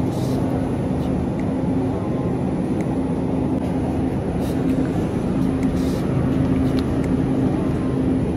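Steady low hum and rumble of a supermarket's refrigerated meat aisle, with a faint steady tone running through it and a few faint clicks.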